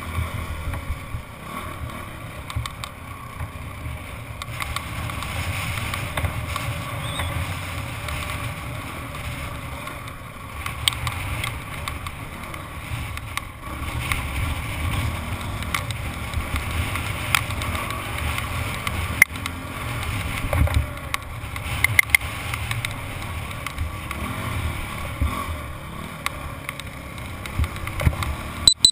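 Dirt bike engine running steadily while the bike rides over slickrock, heard from the rider's helmet. Occasional sharp knocks and rattles come from the bike going over bumps, more of them in the second half.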